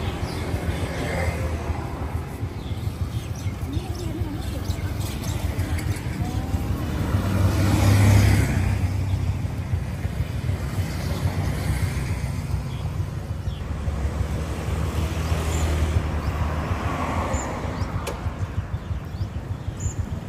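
Road traffic going by: a steady low engine hum, with one vehicle passing loudest about eight seconds in.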